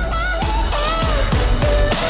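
Background music: a pop-style track with a bending, gliding lead melody over a deep beat.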